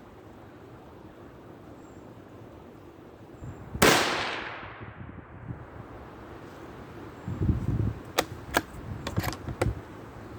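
A single shot from a .17 HMR Ruger American bolt-action rifle about four seconds in, sharp and loud with a short fading tail. Later come gusts of wind buffeting the microphone and a few sharp clicks near the end.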